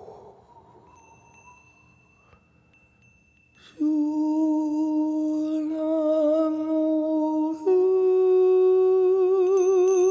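Meditative vocal music: a voice sings or hums long held tones. After a near-quiet start, a held low note begins suddenly about four seconds in, then steps up to a higher note with a slow vibrato near eight seconds in.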